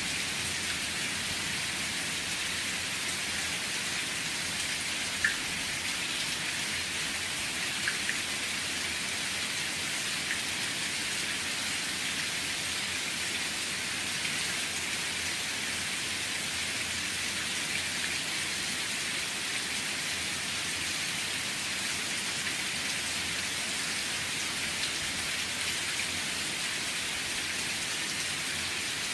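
Steady rain falling, an even hiss with a few louder single drops hitting near the microphone.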